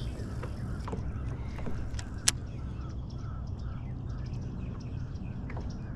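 Steady low hum of a small fishing boat on the water, with light clicks and knocks and one sharp click a little over two seconds in.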